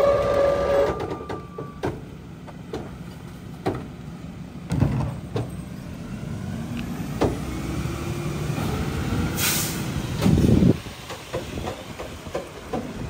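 Mack MRU rear-loader garbage truck with a Heil PowerTrak body working a stop. Trash cans and the hopper knock and clank, and the diesel engine revs up. A short sharp air-brake release hiss comes about nine and a half seconds in, followed by a loud surge as the truck pulls away.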